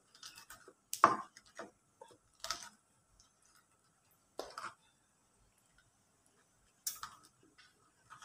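Stone pestle knocking and scraping in a ceramic bowl, crushing chillies in soy sauce: scattered dull clicks, with four louder knocks a second or two apart.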